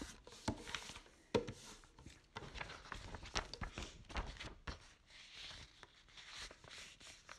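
Irregular clicks and knocks over a faint rustling, the sharpest knock about a second and a half in.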